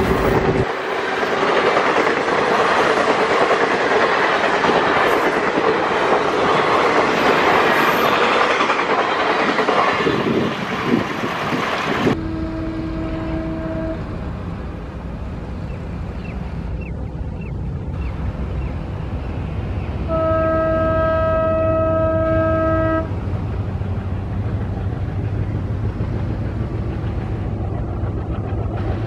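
Passenger coaches rush past on the track with a dense clatter of wheels on rail. Then an ALCo diesel locomotive sounds its horn twice, a short blast and a longer, louder one, over the low, steady rumble of its engine.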